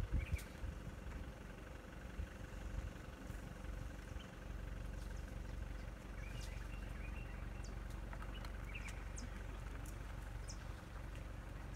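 A vehicle engine idling steadily, a low even hum that settles in a few seconds in. Short bird chirps sound on and off over it, and there are a few low bumps in the first second.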